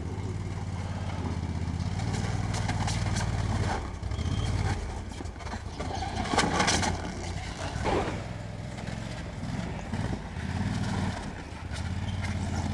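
Engine of an Amphicat amphibious ATV fitted with tracks, running and revving up and down as it drives over rough ground. A few sharp knocks and rattles come around the middle.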